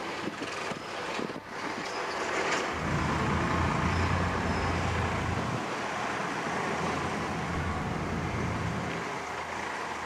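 A motor engine running, its low hum swelling loudly for a few seconds in the middle and fading near the end, over a steady rushing noise.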